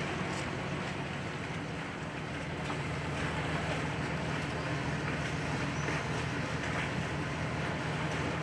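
Boat engine running steadily, a low even hum under a constant hiss of water and wind.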